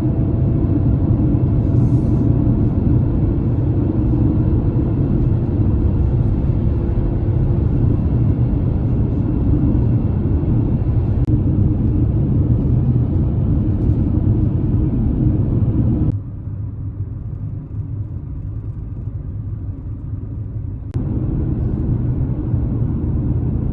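Steady road and engine rumble of a car heard from inside the cabin while driving, with no voice over it. About two-thirds of the way in it turns noticeably quieter for roughly five seconds, then comes back to the same level.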